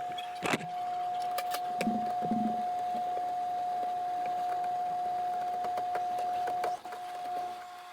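Power drill motor running at a steady speed, as it drives or backs out bracket screws and re-drills holes for drawer slides. There are a few sharp clicks and knocks, and the drill stops briefly near the end before starting again.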